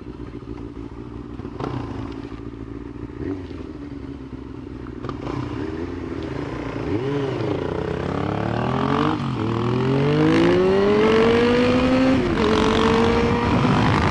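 Motorcycle engine. After a few light knocks, it revs up and down once and then accelerates, its pitch climbing in two long sweeps with gear changes between them and growing louder toward the end.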